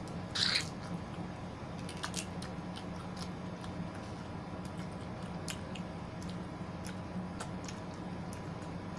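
Close-up wet chewing and biting of juicy yellow watermelon and pineapple, with scattered small mouth clicks. A louder juicy bite comes about half a second in.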